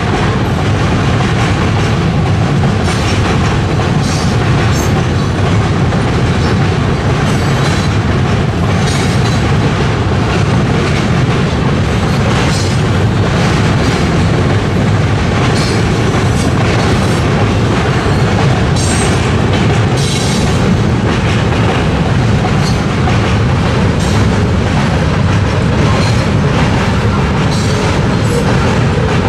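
Freight cars rolling steadily across a steel truss lift bridge: a continuous heavy rumble of wheels on rail, with frequent sharp clicks as the wheels pass over rail joints.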